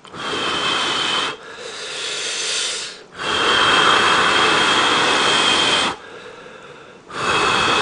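A person slurping instant ramyeon noodles, with four long hissing slurps in a row; the third, starting about three seconds in, is the longest and loudest.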